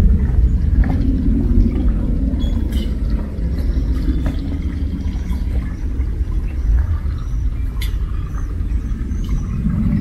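A steady low rumble with faint, scattered ticks above it.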